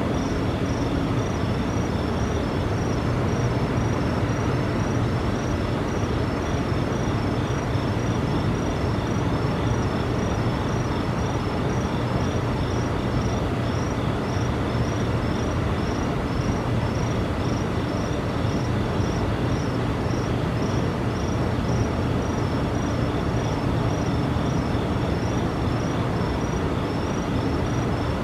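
A steady, loud, low droning rumble with a humming undertone that does not change, the unexplained noise reported by residents. High insect chirping repeats at a regular pace over it.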